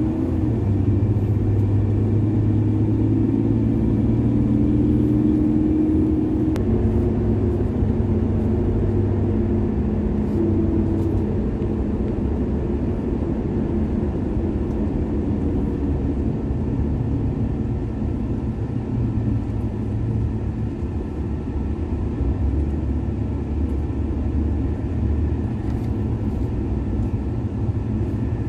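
Car driving on a paved road, heard from inside the cabin: a steady low engine and tyre rumble with a hum that shifts slightly in pitch over the first ten seconds or so.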